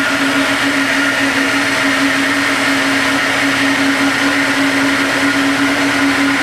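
Exhaust-manifold airflow test bench's blower running steadily, a constant tone over a rush of air, drawing air through a stock Caterpillar exhaust manifold set at 28 inches of water test pressure.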